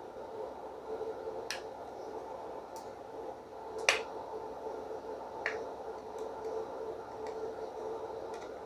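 Small sharp clicks of a screwdriver and tiny screws on a laptop's metal drive caddy as an SSD is fastened in: four clear clicks spread over a few seconds, the loudest about four seconds in, with fainter ticks later. A steady low hum sits under them throughout.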